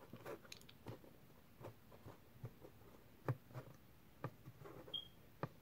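Faint, irregular little clicks and taps of fingers pressing sticky slime into a small black plastic palette case.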